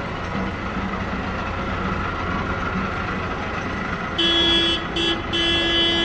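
Farm tractor engines running as tractors drive slowly past. About four seconds in, a horn honks loudly: two short honks, then a longer one.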